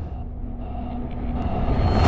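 Low rumble from a cinematic title intro, following a deep boom and swelling steadily louder, with a few faint held tones above it.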